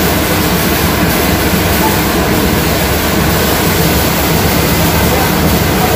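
Belt-driven corn-milling machinery running with a loud, steady mechanical noise and a low hum underneath.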